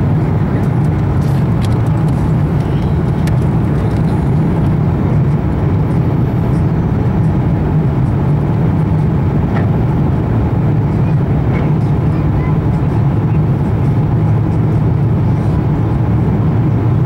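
Steady cabin noise of an Airbus A350-900 descending on approach with flaps extended: the drone of its Rolls-Royce Trent XWB engines and rushing airflow, heard from a seat over the wing, with the low hum strongest and the level unchanging.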